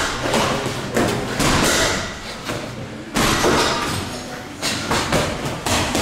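Boxing gloves landing on head guards and bodies during sparring, together with footwork on the ring canvas: a series of dull thuds at irregular intervals.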